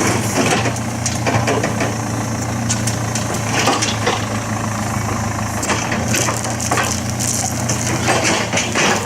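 A construction machine's engine running steadily, with repeated crunching and cracking on top of it throughout.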